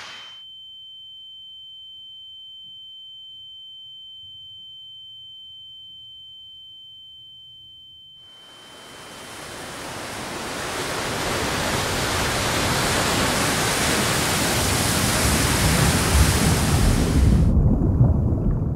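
A single steady high-pitched tone sounds on its own for about eight seconds, like a ringing in the ears. Then a rushing noise like surging water swells in and holds steady, standing for the flood of blood. Near the end its hiss drops away, leaving a low rumble.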